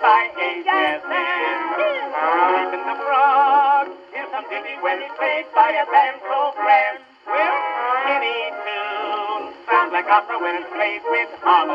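Music with a male singing voice, sung with vibrato. It has a thin, tinny sound with no bass or top end, like an old recording.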